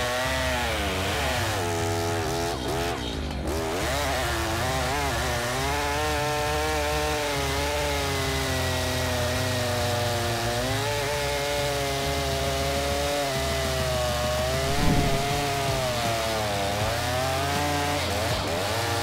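Stihl MS 881 two-stroke chainsaw running under load in a cut, its engine pitch repeatedly sagging and picking up again as the chain bites into the wood. A short knock sounds about three-quarters of the way through.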